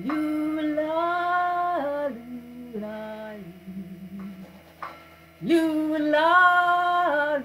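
A woman chanting in long held notes, each sustained for a couple of seconds. The first steps down in pitch to a low hum, and a second held note rises in about five and a half seconds in.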